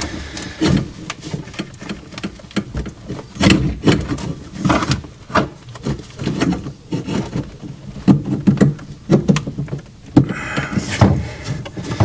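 Irregular clicks, taps and knocks of copper pipe and fittings being handled and pushed together by hand for a dry fit.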